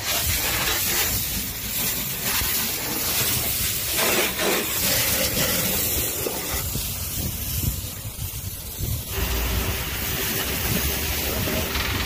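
Pressure washer's high-pressure water jet hissing as it sprays the inside of a backhoe loader's cab, over a steady low hum. The hiss thins for a couple of seconds past the middle, then comes back full.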